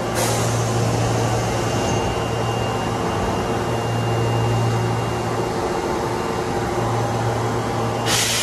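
Osaka Metro 22 series subway train standing at the platform, its on-board equipment giving a steady low hum. Compressed air hisses out just after the start as the doors close, fading over about two seconds, and a louder, shorter hiss comes about eight seconds in.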